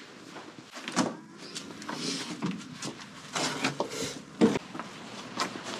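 Handling noises and rustling as a front door is opened on the way out, with a sharp latch-like click about four and a half seconds in, the loudest sound.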